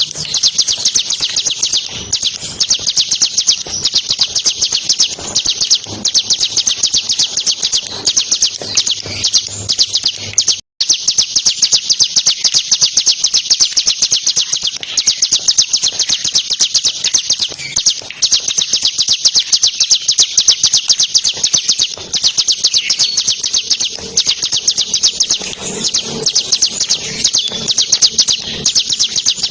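Bar-winged prinia (ciblek) singing a fast, unbroken rattling trill of high notes, the 'ngebren' style kept for training songbirds. The song cuts out for an instant about ten and a half seconds in.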